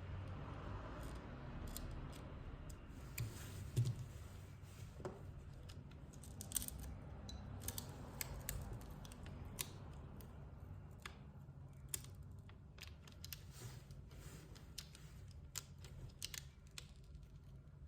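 Scattered light clicks and taps of small tools and parts being handled during a phone repair, over a low steady hum.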